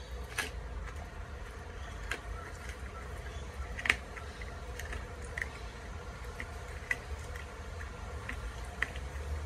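Belgian Groenendael shepherd dog chewing a raw chicken frame, the bones cracking in short, sharp crunches at irregular moments every second or two, the loudest about four seconds in, over a low steady rumble.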